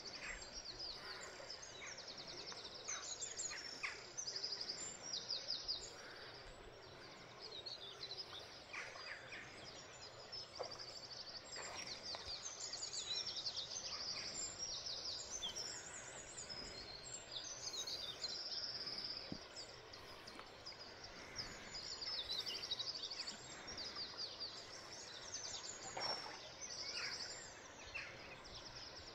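Several songbirds singing together in a dawn chorus: many high, quick trills and twittering phrases overlapping throughout, over the steady hiss of river water.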